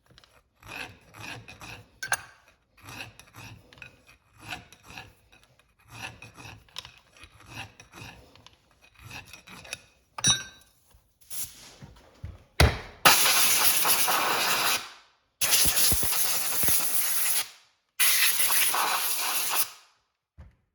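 Half-round file rasping in short strokes, about two a second, knocking a burr off the rolled edge of a transmission planetary bushing. About ten seconds in come a click and a knock, then three loud rushing sounds of about two seconds each.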